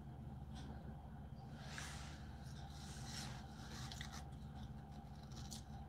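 Faint rustles and small clicks of hands picking at boiled blue crab shell over newspaper, over a low steady hum.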